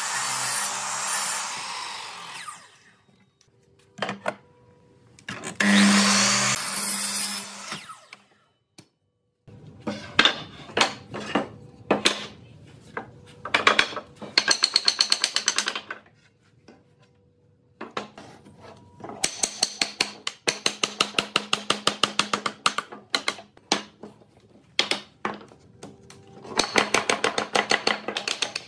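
Sliding miter saw cutting through a wooden board, with a second short cut about six seconds in. After that come long runs of quick, evenly spaced clicks and taps, several a second.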